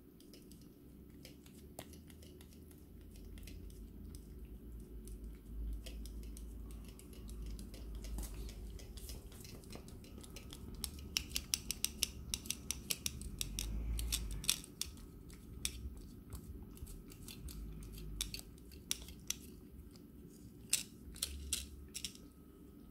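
Ragdoll cat licking yogurt off a foil yogurt lid: quick sharp tongue clicks with crinkling of the foil, coming in fast runs about ten seconds in and again near the end, over a low rumble.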